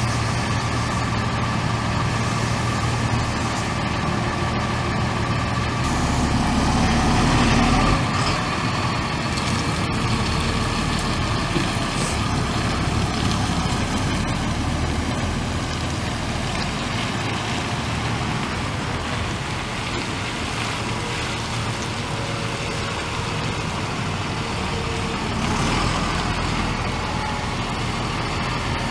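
Cummins ISB 5.9-litre straight-six turbo diesel of a Ford F650 dump truck idling steadily, a little louder for a couple of seconds from about six seconds in.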